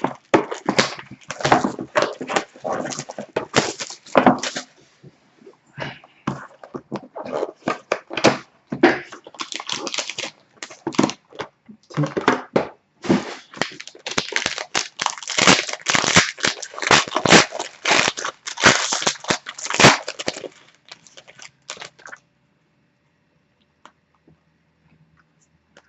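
Plastic shrink wrap being cut and torn off a trading card box, with crinkling and crackling handling of the plastic and cardboard; it stops about three-quarters of the way through, leaving near quiet.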